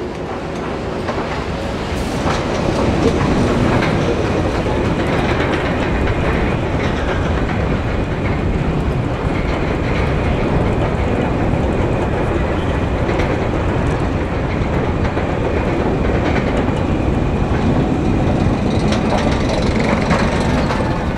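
Roller coaster train climbing a chain lift hill: a steady mechanical clattering of the lift chain and the anti-rollback, growing louder over the first few seconds and then holding.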